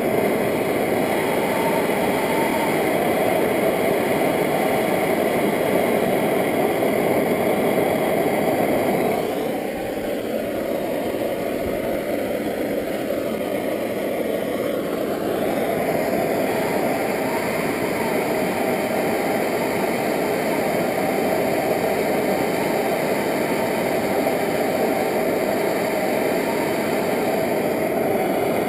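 Handheld gas torch flame burning steadily as a copper pipe joint is heated for soldering. It dips slightly about ten seconds in.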